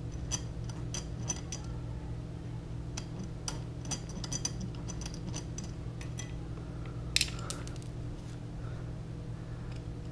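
Hand screwdriver with a T25 Torx bit backing a screw out of a motorcycle's plastic lower fairing: a run of small, irregular metallic clicks, with one sharper knock about seven seconds in, over a steady low hum.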